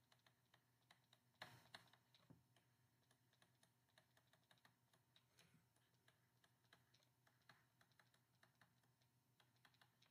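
Near silence with a few faint, sharp clicks, the clearest about one and a half to two and a half seconds in: a stylus tapping on a tablet screen while writing.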